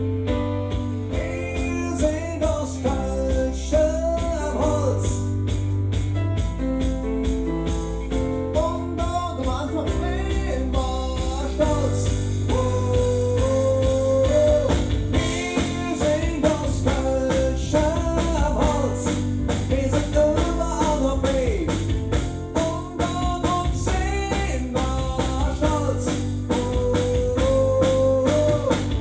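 A band playing a song at its soundcheck: sung lead vocals in Kölsch dialect over guitar, bass and drums.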